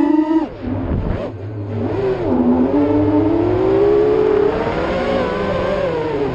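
FPV racing quadcopter's Racerstar 2205 2600kv brushless motors with DAL 5045 three-blade props whining as the throttle changes. The pitch drops sharply about half a second in as the throttle is chopped, then climbs back and holds, easing down near the end.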